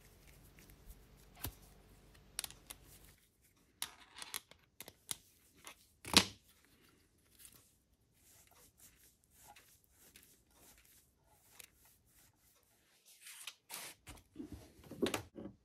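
Hand-tool and handling noises on a workbench: small clicks and scrapes of a socket-extension screwdriver on the screws of a Honda ST1100 aluminium oil pump, the pump and tool knocking and rustling against cardboard, with one sharp knock about six seconds in and a flurry of handling near the end.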